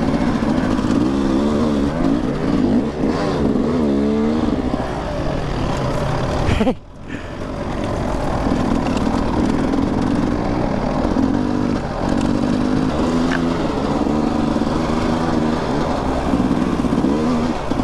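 Dirt bike engine running close to the microphone, revs rising and falling over and over as it is ridden up a rough dirt trail. The sound drops out abruptly for a moment about seven seconds in, then carries on.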